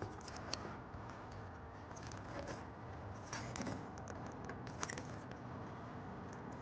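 Faint rustling and a few light clicks of trailer wiring and a pull wire being handled and untaped.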